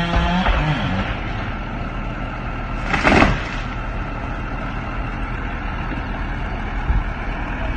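Steady rumble of a running vehicle, with a short loud burst of noise about three seconds in and a small knock near the end.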